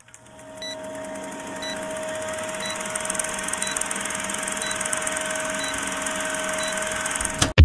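Old-film countdown sound effect: a steady film-projector whir with a short tick about once a second. It fades in over the first second or two.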